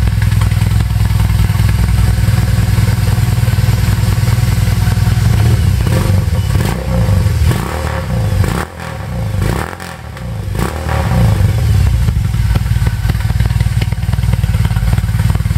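BMW R18's 1,802 cc boxer twin running loud through a stage 2 modified exhaust, revved up and let fall several times between about six and eleven seconds in, the level dipping as the throttle closes.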